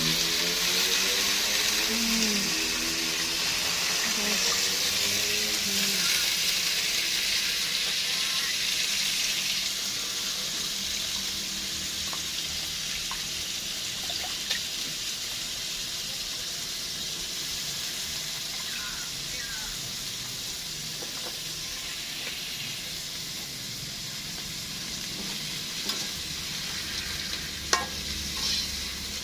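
Kelakai fern greens sizzling in hot oil in a pan as they are stir-fried, just after going in with the fragrant seasoning. The sizzle is loudest at first and eases gradually, with a few sharp clicks later on.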